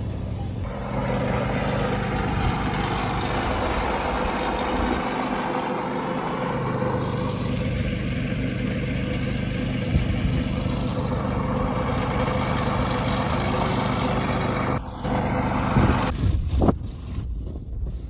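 A motor running steadily with a constant low hum and hiss. It cuts off about fifteen seconds in, and a few knocks and clanks follow.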